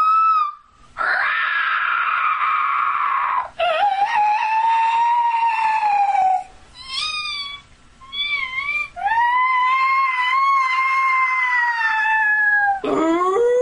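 A young woman's voice imitating Pokémon cries. It is a string of about six high-pitched, drawn-out calls: a rough, raspy one near the start, long held calls that sag in pitch at their ends, and two short wavering ones in the middle.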